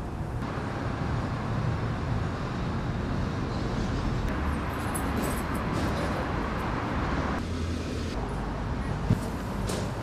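Steady outdoor background noise with a low rumble, and a single sharp click about nine seconds in.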